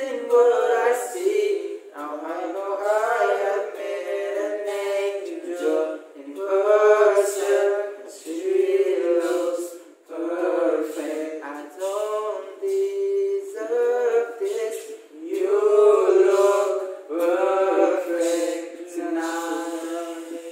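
A small group singing a cappella, voices only and no instruments, in phrases with short pauses between them.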